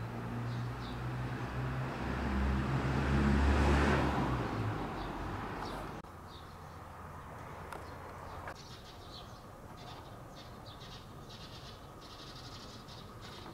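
A car passing by: low engine hum and tyre noise swell to a peak about four seconds in and fade away. After a sudden drop in level about six seconds in, small birds chirp over quiet outdoor ambience.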